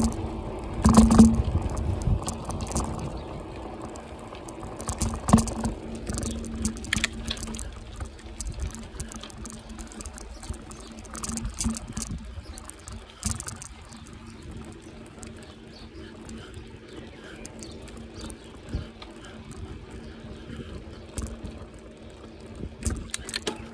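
Bicycle rattling and clicking as it rolls over a cracked, patched tarmac road, with a steady low hum for the first few seconds that fades out about six seconds in.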